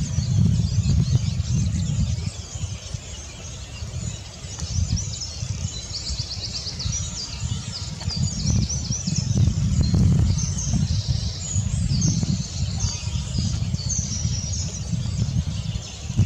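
Small birds singing and calling in woodland: repeated high chirps and short trills, busiest in the second half, over a low uneven rumble.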